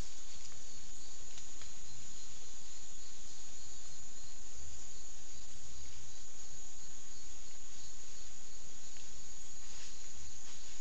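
Steady insect chorus, a continuous high-pitched buzz over an even background hiss.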